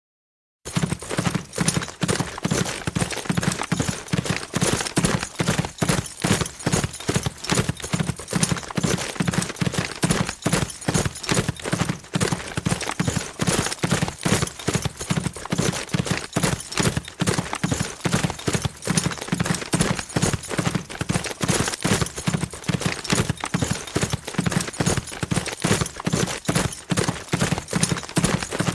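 A horse galloping fast: rapid, continuous hoofbeats, a quick steady drumming of hooves that starts about half a second in and keeps going without a break.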